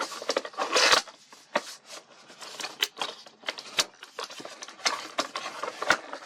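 Phone box packaging being handled and opened: irregular clicks, taps and rustling scrapes, with a longer scrape about a second in.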